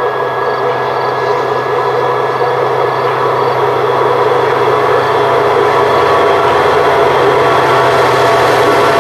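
HŽ series 2044 diesel locomotive running under power as it approaches hauling a freight train, its engine drone growing steadily louder, with the rumble of the wagons behind.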